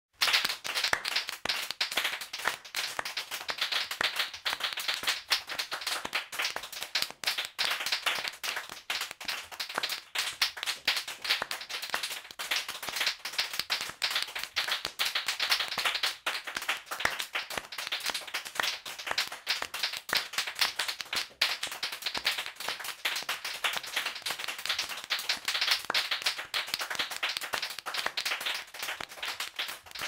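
Several people clapping their hands, a dense, irregular patter of claps like applause from a small crowd, going on steadily.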